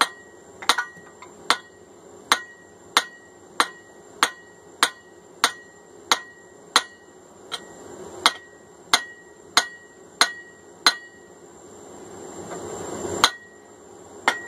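Blacksmith's hand hammer striking hot steel on an anvil in a steady rhythm of about one and a half blows a second, each blow with a short metallic ring. The work draws out a hammer head by hand. The blows stop about three-quarters of the way through, and one more blow lands near the end.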